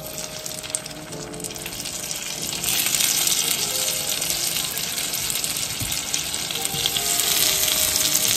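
Peeled apple quarters being set into hot butter-and-sugar caramel in a skillet, sizzling as each piece goes in. The sizzle grows louder, jumping up about two and a half seconds in and staying loud.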